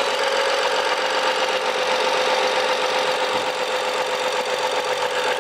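BMW F07 535i GT's 3.0-litre N55 turbocharged petrol straight-six idling steadily, hot, just after being restarted. The odd noise it had made on hot restarts does not appear.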